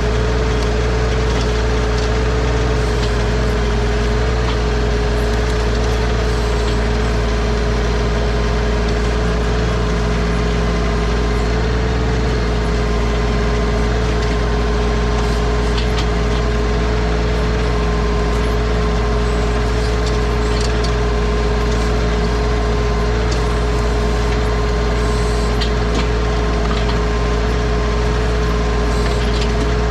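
Bad Boy 4035 compact tractor's diesel engine running steadily while working the backhoe, with a constant whine over the engine sound.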